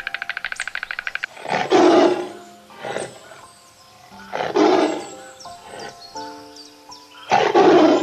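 A white stork's rapid bill-clattering rattle stops about a second in. Then a white tiger gives three loud roars, each under a second long and about three seconds apart, over background music.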